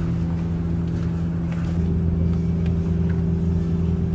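Steady low machine hum, unchanging throughout, with a few faint small clicks over it.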